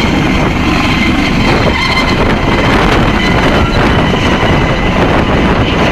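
Dauphin twin-turbine helicopter lifting off close by: loud, steady rotor and engine noise with a thin high whine, and its rotor downwash blowing hard on the microphone.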